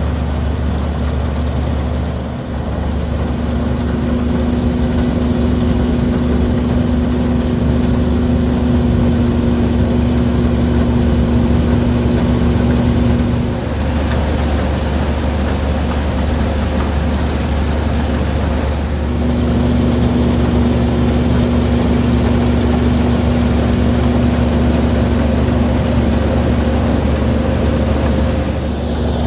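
A large farm machine's diesel engine running steadily, with a steady whine over the hum that drops away for a few seconds about halfway through and then comes back.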